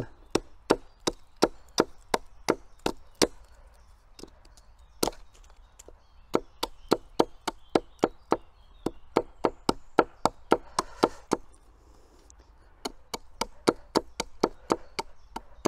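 Small Tivoli hatchet chopping at a stick to point it into a tent peg: quick, light blows of the blade into wood, two to three a second, with short pauses about four and twelve seconds in.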